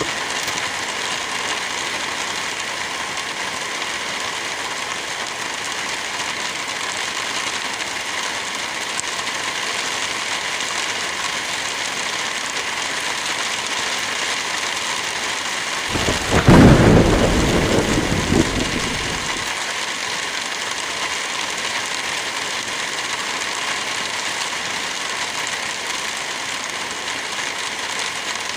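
Steady hiss of light rain and wind in forest trees. About halfway through, a low rumble swells for about three seconds and then fades.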